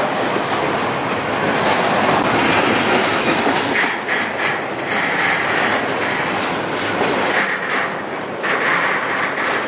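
Intermodal freight train's flatcars, loaded with truck trailers and containers, rolling past close by: a steady, loud noise of steel wheels running on the rails, with no locomotive in this stretch.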